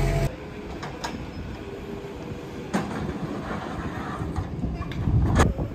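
Compact Merlo telehandler's engine running as it carries a pallet on its forks, loud inside the cab for a moment and then heard from outside with a steadier rumble. A few sharp knocks and clanks come through, the loudest near the end.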